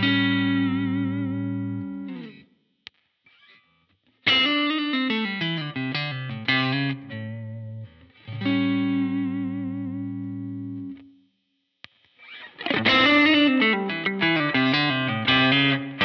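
Electric guitar played through a pedal chain, first dry with no effect, then with an Anasounds Lazy Comp compressor pedal switched on partway through. It plays a held chord with a slight waver, a pause, a falling phrase, another held chord, a short pause, and busier strummed chords near the end.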